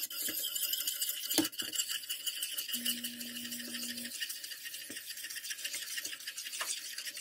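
Metal utensil stirring quickly in a stainless steel pot of water, a fast steady scratching and scraping against the pot as thick mung bean batter is poured in.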